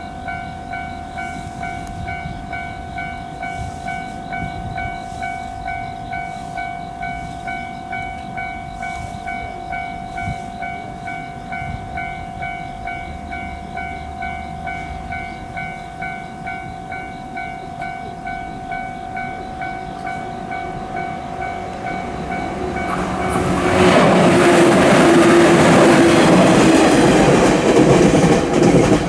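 Japanese level-crossing alarm ringing its repeating electronic 'kan-kan' bell in a steady rhythm. From about 23 seconds in, a train passes over the crossing, loud and noisy, over the bell.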